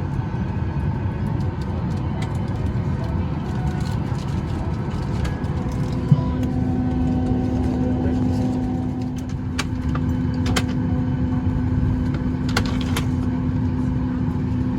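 Steady low rumble inside the cabin of a Boeing 737 MAX 8 parked at the gate, the sound of its air-conditioning. A steady hum joins about a third of the way through, and a few sharp clicks come later.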